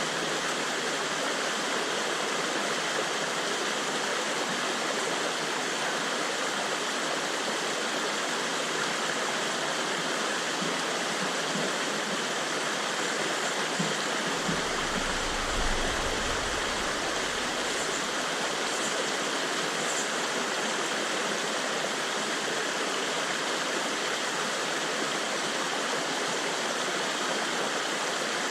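Fast-running river water rushing steadily, with a short low rumble or thud just past the middle.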